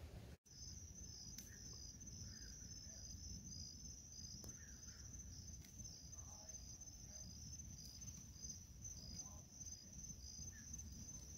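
Faint chorus of insects at dusk: one steady high trill with a second insect pulsing in a slower rhythm just below it, over a low background hum. A few faint pops from the wood fire burning in a metal fire ring.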